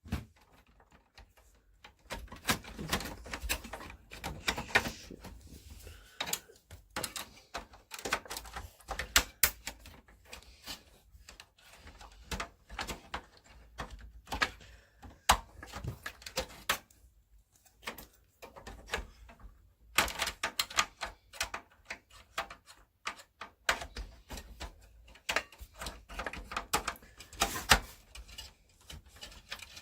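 Irregular clicks, taps and knocks of hands handling hard plastic and metal computer parts inside a desktop PC case, with a pause of a couple of seconds past the middle.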